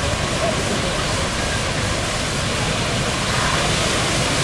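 Strong storm wind rushing through thrashing trees: a steady, dense rush of noise, with gusts buffeting the microphone in a low rumble.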